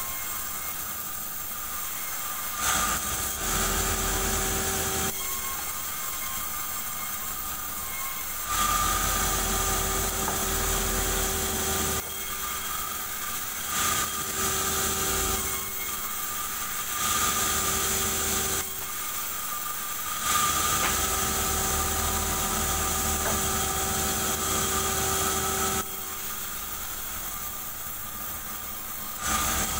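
Band sawmill running steadily, its blade sawing a durian log into planks. Several louder stretches with a hiss come as the blade cuts through the wood, and between them the saw hums evenly.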